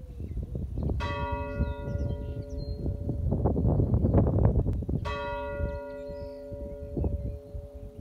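A church bell in a village church tower tolling: two strikes about four seconds apart, each ringing on with long overtones. A low rumbling noise swells between the strikes.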